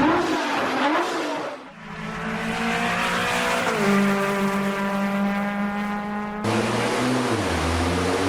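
GT sports car engine revving, then holding a steady note that climbs slightly in pitch. About six and a half seconds in, it cuts suddenly to a deeper engine note that dips and then recovers.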